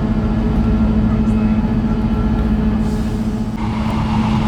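A moving diesel passenger train heard from on board: a steady low rumble of the running gear on the track with a steady engine hum. About three and a half seconds in, a louder rushing noise joins it.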